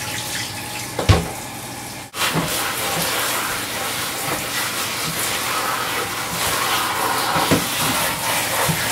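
Kitchen tap running steadily onto collard greens in a colander as they are rinsed and rubbed by hand, with a single knock about a second in. The sound breaks off for an instant about two seconds in, then the water runs on a little louder.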